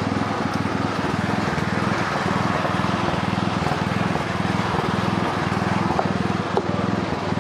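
Small engine running steadily with an even throbbing drone. A couple of light knocks near the end, from a cleaver on a wooden chopping board.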